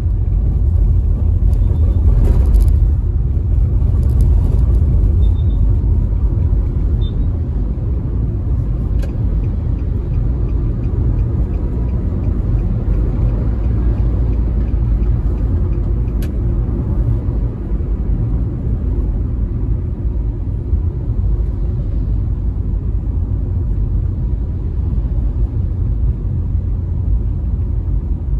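Steady low road rumble and tyre noise of a moving car, heard from inside, with a brief louder stretch and a few faint clicks about two seconds in.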